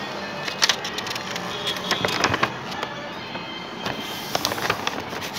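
A sheet of paper rustling and crackling in irregular bursts as it is handled and folded.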